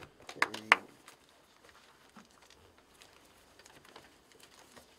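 A small folded paper slip being unfolded by hand: faint, scattered little crinkles and ticks, after a brief bit of voice about half a second in.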